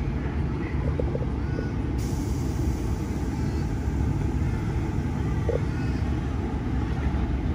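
Sydney Trains chopper-controlled C set double-deck electric train standing at a platform, its onboard equipment giving a steady low rumble and hum.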